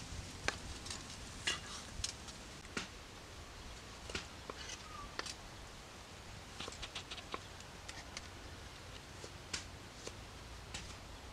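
Kitchen knife slicing tomatoes on a wooden cutting board: scattered sharp taps of the blade meeting the board, with a quick run of taps a little past halfway.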